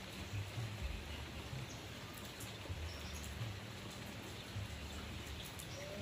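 Steady rain hissing on broad tree leaves, over a low uneven rumble, with a few faint high chirps from munias.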